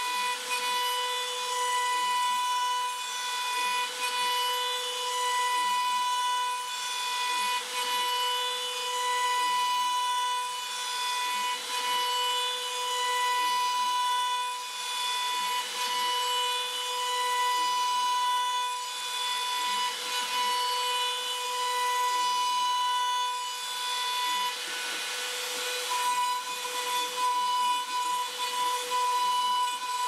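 Electric wood router running with a steady high whine, cutting wood with a rough rasping noise that swells and eases as it is fed around the edge of a guitar body.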